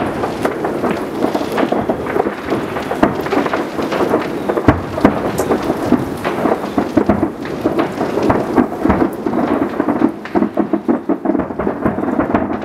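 Fireworks barrage of many aerial shells bursting at once, heard as a dense, unbroken rumble of bangs and crackles. The bangs stand out more separately near the end.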